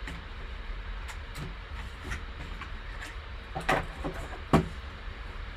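Hands handling a trading-card box and its foam insert: faint rustling and light taps, then two sharper clicks a little under a second apart past the middle.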